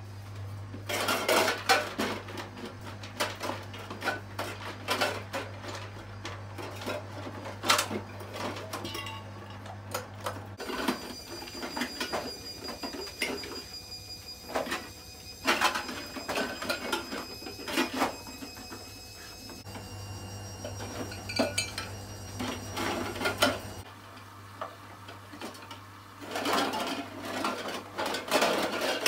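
Empty metal tin cans clanking and rattling against each other in a plastic tray as dogs nose through them, with irregular clatters as cans are knocked out and roll on the floor.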